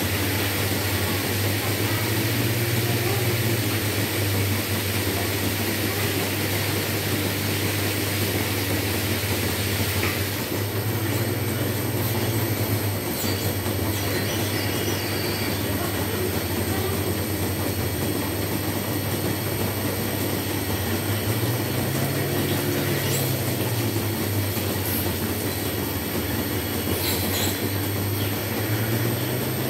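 Dairy milking plant machinery running steadily: a continuous low hum under a high hiss and faint whine, with a couple of light clicks near the end.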